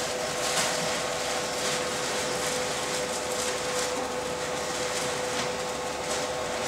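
A 40 W laser engraving machine running with its fans going: a constant whirring noise carrying one steady hum, with a few faint clicks of handling.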